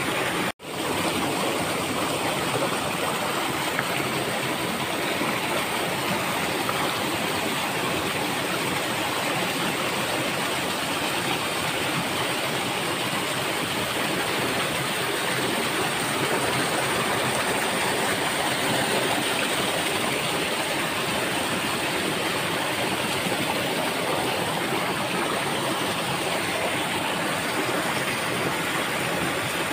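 Stream water rushing and cascading over rocks in a steady, even rush, cut off for an instant about half a second in.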